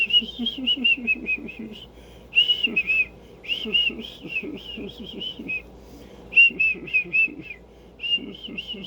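A tune whistled in quick, short phrases of high, bending notes, with brief breaks between the phrases.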